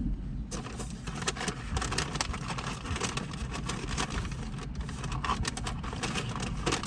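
Steady low rumble like a vehicle engine running, with many small clicks and crackles over it.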